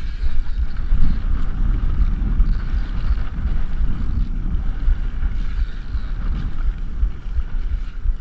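Wind buffeting the microphone in heavy, gusty rumbles over the steady rush of water past a moving boat.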